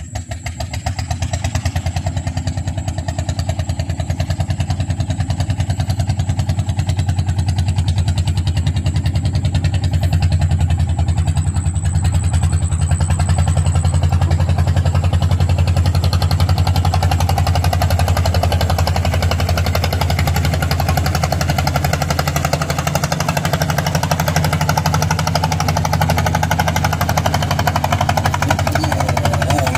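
A small engine running steadily close by with a rapid, even beat. It comes in at the start, grows louder over the first few seconds and stays loud.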